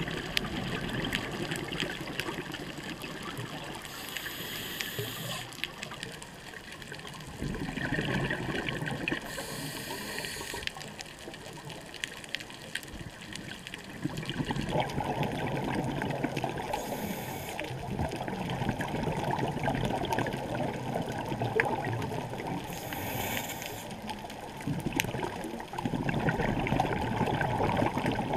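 Underwater sound through a camera housing: a scuba diver's regulator breathing and exhaled bubbles rushing and gurgling, swelling and easing in cycles every several seconds.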